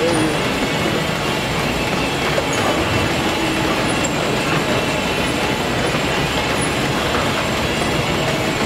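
Steady gym background noise: the continuous whir and rumble of cardio machines in use, filling the room without a break.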